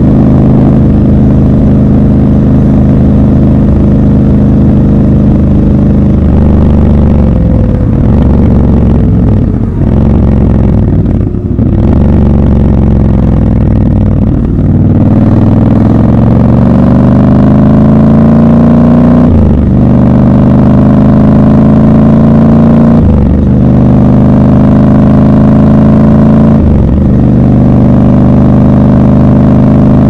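Triumph Scrambler 1200 XC's parallel-twin engine under the rider. It holds a steady note, then falls in pitch as the bike slows in the middle. From about halfway it accelerates hard, the note climbing through three upshifts, each a short dip before it rises again.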